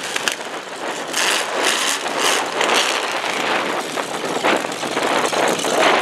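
Demolition derby car engines running, a loud steady engine noise with frequent short surges.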